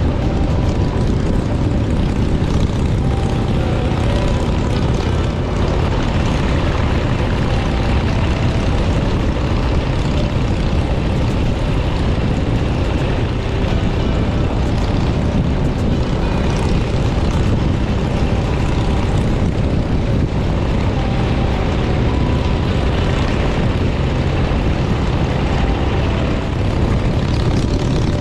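Motorcycle engine running steadily at cruising speed, mixed with the wind noise of riding.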